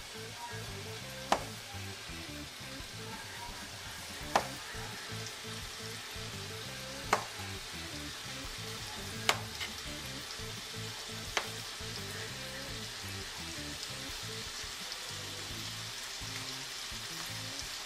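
Bacon sizzling steadily in a frying pan. Five sharp clicks come every two to three seconds, in the first twelve seconds, as a wavy crinkle-cut chopper blade cuts through slices of Spam onto a plastic cutting board.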